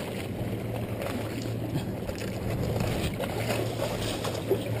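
Small waves washing and splashing against jetty rocks, with wind on the microphone and a low steady hum underneath.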